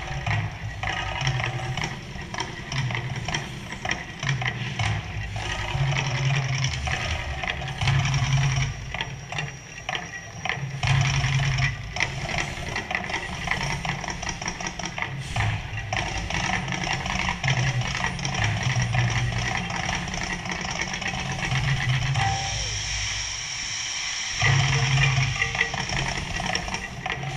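Mirage volcano attraction erupting: deep rumbling booms come in uneven pulses over a steady rushing noise.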